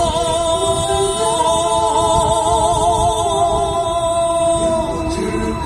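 Singing: a voice holding long notes with a wavering vibrato. Under it, the rough low rumble of strong wind buffeting the microphone.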